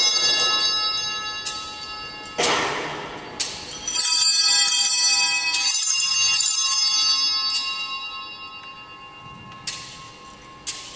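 Altar bells rung at the elevation of the host after the consecration: a cluster of small bells shaken in repeated bursts of bright ringing. The ringing is loudest in the middle, then dies away, with a few lighter single strokes near the end.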